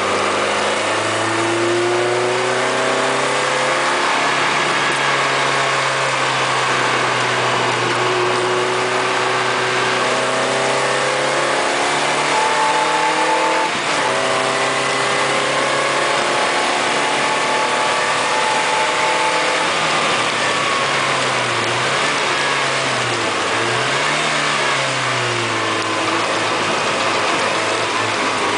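Lotus Elise Sport 160's mid-mounted four-cylinder engine heard from inside the cabin, revving up and dropping back through the gears in short shifts. The engine's pitch dips and climbs twice in quick succession near the end, under a steady hiss of tyres on a wet track.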